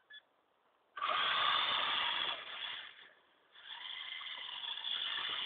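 Electric motor of a Maverick Strada DC Evo RC drift car whining at speed. It starts suddenly about a second in, drops out for a moment around three seconds, then picks up again.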